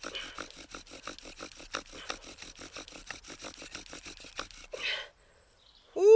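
Bow drill at work: the wooden spindle rasps and squeaks in the hearth board's notch with quick back-and-forth bow strokes, about five a second, smoking as it builds toward an ember. The strokes stop about five seconds in. Near the end comes a short, loud cry that rises and falls in pitch.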